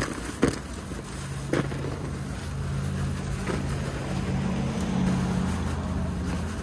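Steady low hum of motor vehicle engines running, with a few sharp knocks near the start.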